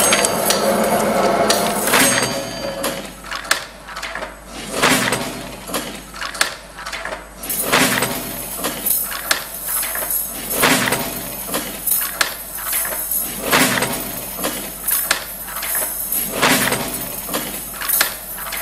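A series of rough scraping strokes, one every second or two, after a dense noisy opening. It sounds like workshop or percussion noise played for the dance.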